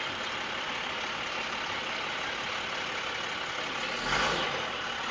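Car engine running with steady cabin noise, heard from inside the vehicle, with a brief louder rush and a low thump about four seconds in.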